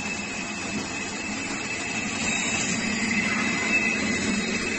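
Burger bun slicer running: its motor and conveyor belt make a steady mechanical whir with a constant high whine over a low hum.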